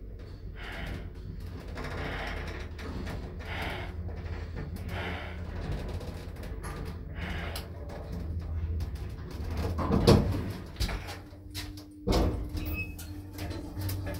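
Elszyk passenger lift car travelling down with a steady low hum, then a loud clunk about ten seconds in as it stops at the floor. About two seconds later the automatic sliding doors start to open with a thump and a steady hum from their drive.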